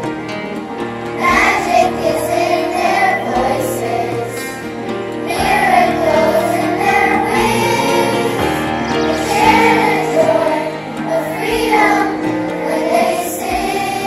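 Elementary school children's choir singing in unison with instrumental accompaniment, in sung phrases of a few seconds with short breaths between.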